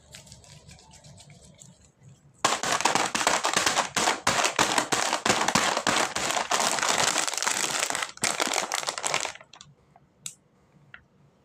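Plastic snack packaging crinkling loudly as it is handled, starting a couple of seconds in and lasting about seven seconds, followed by a few faint clicks.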